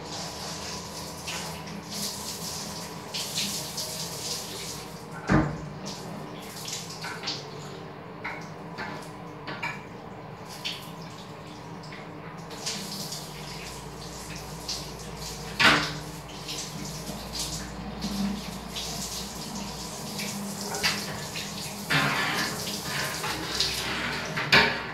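Handheld shower head spraying water onto a glass shower screen and tiles, rinsing off a muriatic acid cleaner, with irregular splashing. Two sharp knocks stand out, one about 5 seconds in and one about 16 seconds in.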